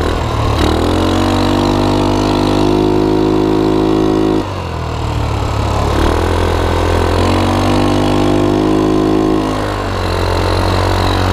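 Rapidity GY6 150cc single-cylinder four-stroke ATV engine, fitted with a PZ27 carburettor, revving up twice under throttle while riding. Its pitch climbs and holds, drops suddenly about four seconds in as the throttle is let off, then climbs again and eases back near the end.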